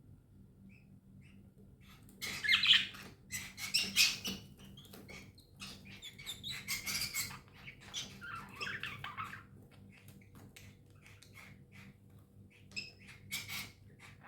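Budgerigars chattering and squawking in short harsh bursts, loudest about two and four seconds in, with a further flurry near the end.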